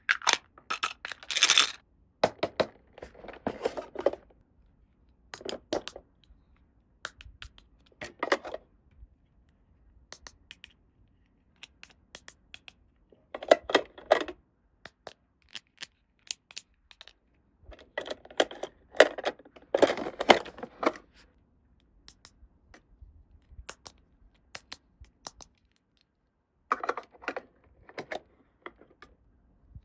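Hands unboxing a toy playset and handling its packaging and small plastic pieces: irregular bursts of clicks and rustling, separated by quiet gaps of a few seconds.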